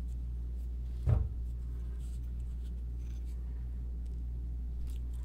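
Fishing line being tugged tight on a pair of knot-puller handles: faint scratching and ticking of line and handles, with one short thump about a second in, over a steady low hum.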